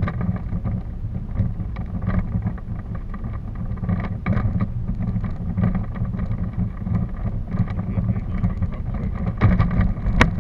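Wind rumbling on the microphone of a camera in motion, with irregular clicks and knocks throughout and a sharp click near the end.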